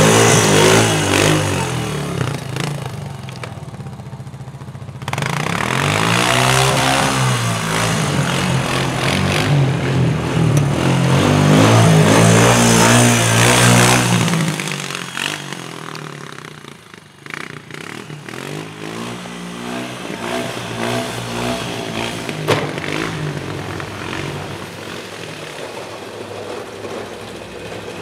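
ATV engine running close by, its pitch rising and falling as it revs while pushing snow with its plow blade. About halfway through it falls away to a quieter engine running, and there is a single sharp knock later on.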